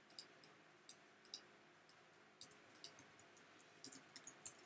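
Faint computer keyboard typing: a quick, irregular run of light key clicks.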